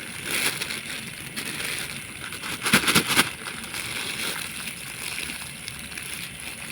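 Eating and food-handling noises over a steady hiss, with a cluster of short rustling, scraping strokes about three seconds in, the loudest sound here.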